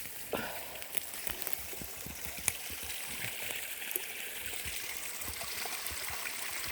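Small forest creek running and trickling steadily, a continuous rush of water, with a few sharp clicks, the clearest about two and a half seconds in.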